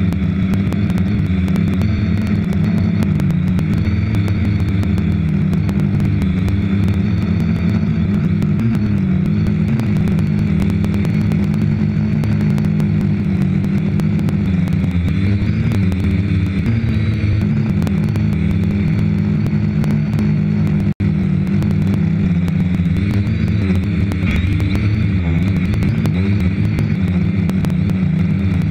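Quadcopter's electric motors and propellers buzzing steadily, heard close up from a camera mounted on the drone. The pitch wavers slightly, and the sound cuts out for an instant about 21 seconds in.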